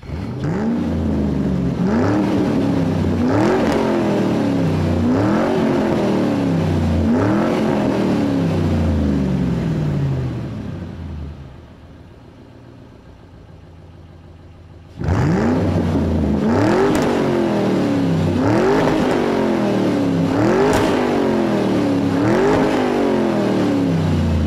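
Car engine revving in repeated throttle blips. Each blip climbs quickly in pitch and then winds slowly back down, about every one and a half to two seconds. The revving fades out for a few seconds in the middle and then starts again.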